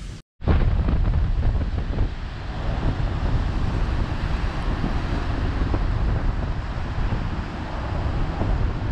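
Surf breaking and washing up a beach of rounded stones, with strong wind buffeting the microphone in a steady low rumble.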